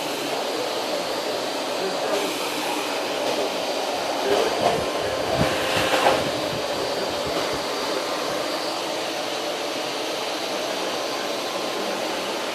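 Vacuum cleaner running steadily with a constant hum and faint whine, with a few brief louder bumps about four to six seconds in.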